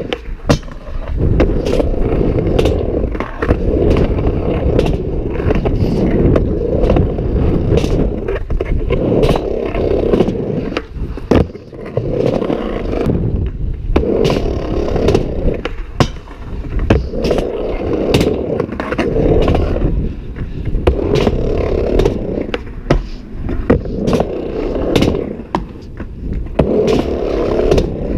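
Skateboard wheels rolling on a plywood ramp, the rumble swelling and fading about every two seconds as the board rides back and forth, with frequent sharp clicks and knocks throughout.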